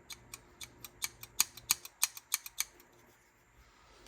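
Head-carriage levers of a Sony TC-K777ESII cassette deck clicking as they are worked back and forth by hand, an irregular run of light, sharp clicks over the first two and a half seconds. The mechanism is being tried out after reassembly to check that it moves freely.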